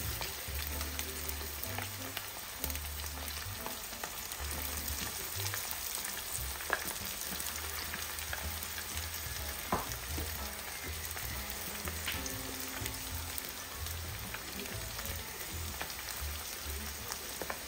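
Battered chicken pieces deep-frying in hot oil, a steady sizzle and crackle with a couple of sharper pops.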